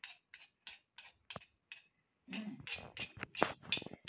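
Metal spoon scraping and tapping in a stone mortar of freshly ground chili paste: a string of short clinks, about three a second, coming thicker and louder in the second half.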